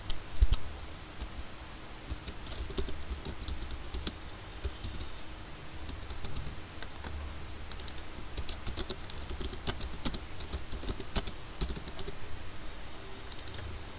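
Computer keyboard typing: irregular runs of keystrokes as words are typed, with pauses between runs. A low thump about half a second in is the loudest sound.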